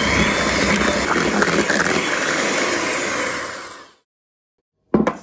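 Electric hand mixer with twin wire beaters whisking cream cheese, sugar and eggs in a glass bowl, running steadily, then winding down and stopping about four seconds in. A short sharp knock near the end.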